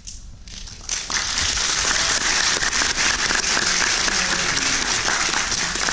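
Audience applauding, a dense spread of hand claps that swells in about a second in and then holds steady.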